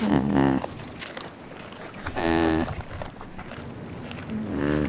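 Cattle mooing: three short calls about two seconds apart, the first falling in pitch.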